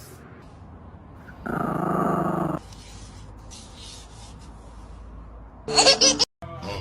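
A dog growling for about a second, then a louder, sharper vocal sound near the end.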